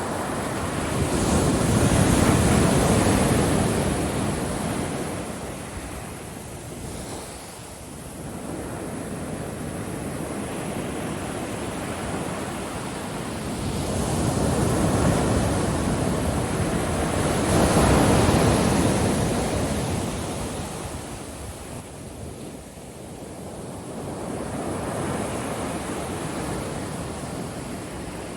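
Ocean surf breaking on a beach, the wash swelling and fading in slow surges every several seconds.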